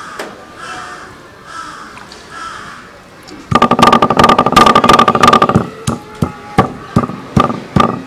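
Soft thuds of a stone pestle mashing fish flesh on a wooden board. About three and a half seconds in, crows start cawing loudly: a harsh run of about two seconds, then short caws repeated about twice a second.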